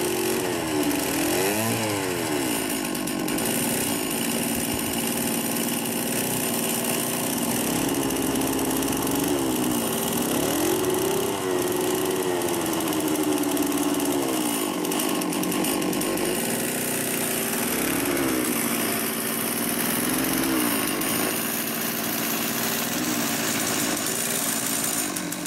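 Lure-coursing machine's small chainsaw-type petrol engine running and pulling the lure line, its revs rising and falling again and again as the lure is driven.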